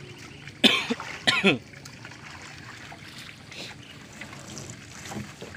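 Water trickling and dripping from a fishing net as it is hauled out of the river into a boat. About a second in, a person's voice gives two short, loud bursts.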